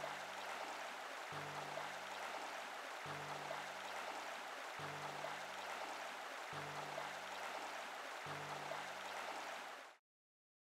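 Steady rush of flowing river water, with a soft low musical note re-sounding about every second and three-quarters. All sound cuts off abruptly about ten seconds in.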